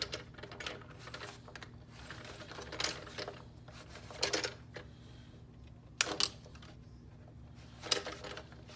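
Scattered clicks and knocks, about six in all with a double one near the middle, like hard toys being handled and moved, over a steady low electrical hum.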